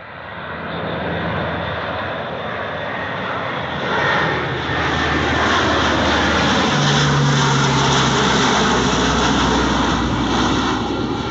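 Military transport plane flying low overhead, its engines swelling loud over the first second or two and staying loud, with the pitch slowly falling as it passes.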